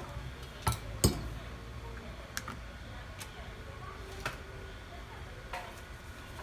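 Small hard clicks and clinks of hand tools and phone parts during a smartphone teardown, about six irregular taps. The loudest two come close together about a second in.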